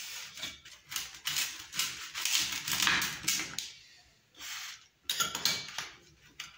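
Wheel pizza cutter rolling through a baked pizza crust and scraping against the metal pizza pan, in a run of repeated strokes, then two shorter cuts near the end.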